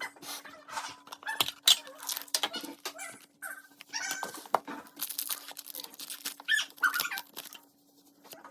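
Crinkling and crackling of a foil booster-pack wrapper being handled and torn open, in irregular bursts with sharp clicks and a few short squeaks. A faint steady hum runs underneath.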